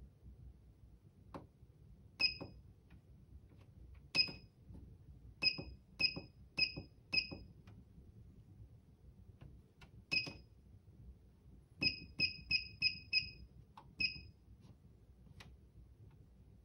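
Control keys of a desktop label printer being pressed, each press giving a click and a short high electronic beep. There are about a dozen presses, at uneven spacing, including quick runs of four and five, with a few fainter clicks that have no beep.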